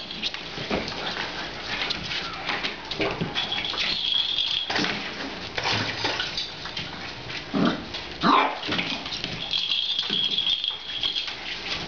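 Puppies scampering and scuffling through cedar shavings, a steady crackly rustle of wood chips, with small yips and whines from the puppies; the loudest yip comes about eight seconds in.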